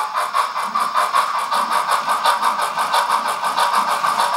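Recorded steam-locomotive chuffing from a DCC sound decoder, played through the small speaker of an O gauge 3F Jinty tank engine model while it runs: an even, quick beat of about five chuffs a second.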